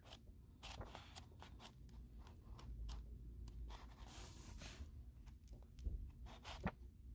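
Pages of a thick paperback book being turned by hand: faint papery flicks and rustles, coming irregularly and a little thicker about four seconds in and again near the end.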